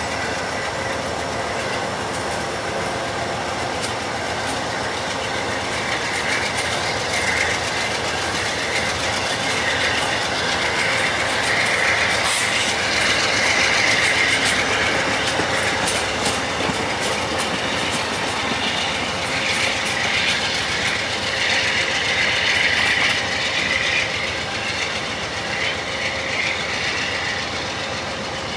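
Amtrak passenger cars rolling past close by: steady wheel-on-rail rumble with clickety-clack over the rail joints, a little louder in the middle as the cars go by.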